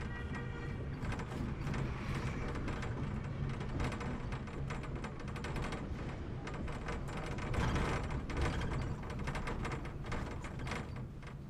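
Inside a moving bus: steady engine rumble and road noise with frequent small rattles and clicks.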